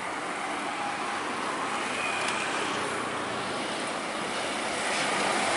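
Road traffic passing close by: a dump truck, motorcycles and buses, their engines and tyres heard as a steady hiss that grows louder near the end.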